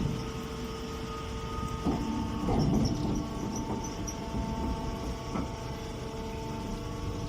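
Straw compress baler running: a steady machine hum over a low rumble, with a few short knocks.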